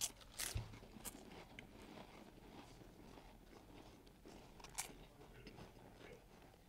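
Dry saltine crackers being bitten and chewed. There are a few sharp crunches in the first second and another about five seconds in, with faint chewing between.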